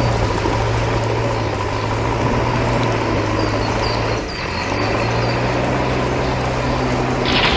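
Diesel engine of heavy construction machinery running steadily under a constant hiss of rain, dipping briefly about four seconds in.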